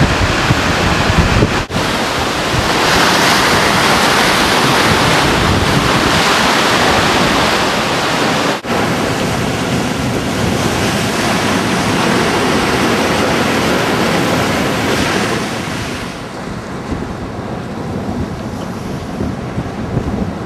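Heavy storm surf breaking and churning over rocks, a loud steady rush, with wind buffeting the microphone; the waves are driven by a hurricane swell on a very large tide. Two brief dropouts break the sound, about two and nine seconds in, and it grows softer for the last few seconds.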